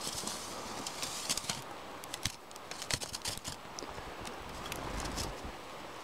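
Irregular crunching and clicking as a steel tape measure is pushed down into deep fresh snow.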